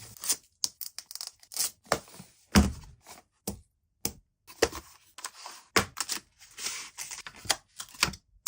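Hands handling a smartphone box and its packaging: a quick run of sharp clicks and taps, a heavier thump about two and a half seconds in, and stretches of rustling in the second half.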